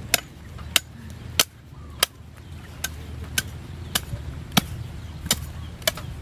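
A knife chopping on a cutting board in steady, evenly spaced strokes, a little under two a second.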